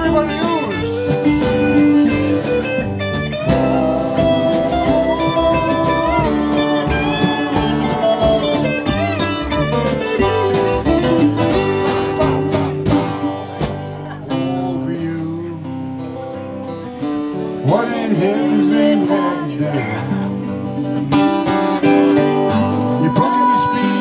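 Live country-blues band in an instrumental break between verses: a Telecaster-style electric guitar plays a lead line with bent notes over strummed acoustic guitar and bass.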